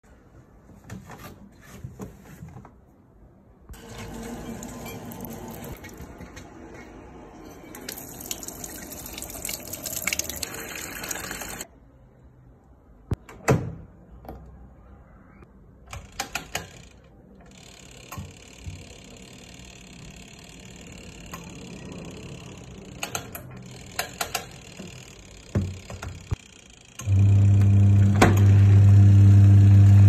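Water running into the wash tub of a twin-tub portable washing machine, then clicks from its timer dial being turned. Near the end the wash motor starts with a loud, steady hum as the tub agitates the load.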